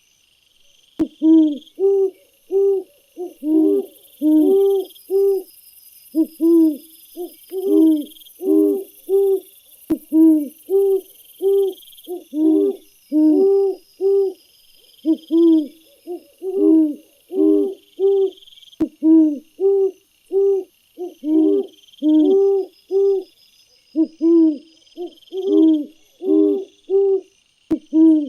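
A bird's short hooting calls, given in quick runs of several notes, with the runs repeating every second or two. A faint high, rhythmic chirping carries on behind.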